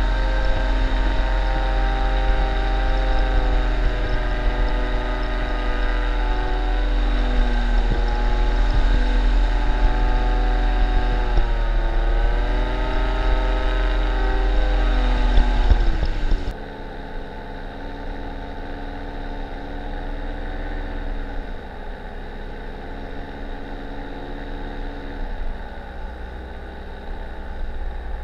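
Paramotor engine and propeller running in flight, the engine note wavering and dipping then rising again partway through. About halfway the sound drops abruptly to a quieter, duller run.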